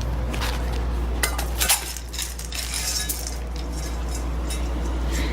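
Repeated clinking and clattering of hard objects over a steady low hum.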